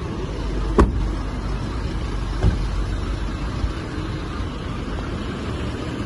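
Low, steady rumble of a car rolling slowly over a brick-paved lane, heard from its open window. A sharp knock comes about a second in and a softer one about two and a half seconds in.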